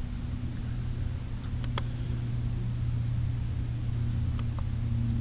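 Steady low hum over an even hiss, with a few faint clicks, the second and third close together.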